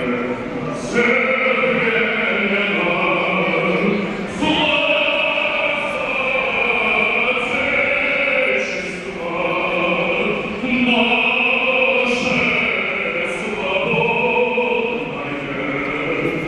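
A national anthem sung by many voices with a crowd whistling loudly over it: a shrill band of many whistles that holds for several seconds at a time, breaking off briefly a few times.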